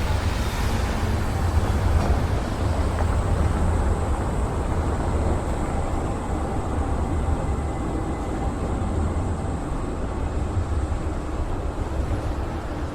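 Wind on the Insta360 X4 camera's microphones, which have a wind-protection cover fitted: a steady low rumble that rises and falls a little, without letting up.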